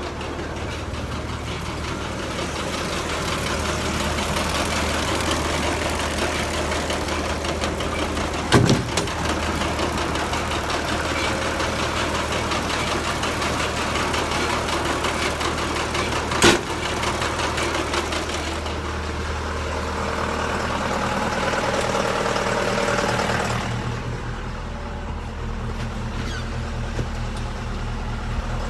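Tractor engine idling steadily beside a round baler, with two sharp knocks, the first about a third of the way in and the second past the middle.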